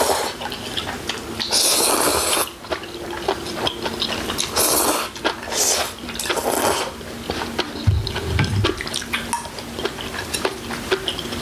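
Eating sounds from a bulgogi hotpot meal: noodles and broth slurped several times, among chewing and many light clicks of spoons and chopsticks on bowls, with a brief low thump about eight seconds in.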